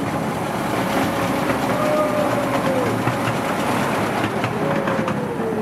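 Miniature railroad cars running along the track, a steady rattle with frequent clicks from the wheels and rail joints. A thin squeal slides down in pitch twice, about two and a half seconds in and again near the end, from the wheels on a curve.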